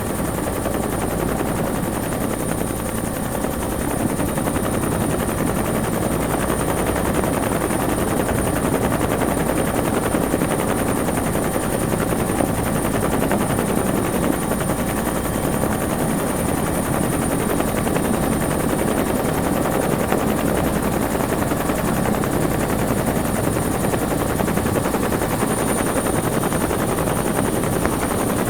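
Bell 212 helicopter heard from inside the cabin while hovering: the two-bladed main rotor's rapid, steady chop under the constant high whine of its twin turboshaft engines.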